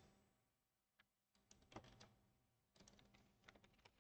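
Faint typing on a computer keyboard: a few scattered light keystroke clicks.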